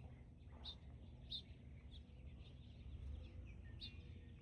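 Faint outdoor ambience: a few short, high bird chirps, spaced a second or so apart, over a low steady rumble.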